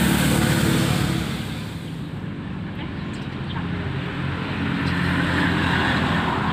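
A motor vehicle's engine running close by, a steady low hum with a hiss on top that eases off about two seconds in and builds again toward the end.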